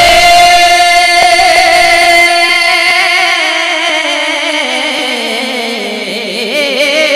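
Male naat reciter singing one long held note into a microphone, the pitch level at first, then sliding slowly downward through the second half, with a wavering ornament near the end.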